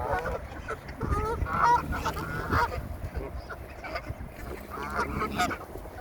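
Water birds calling: a string of short, harsh calls, several in quick succession between about one and three seconds in, and again around five seconds in.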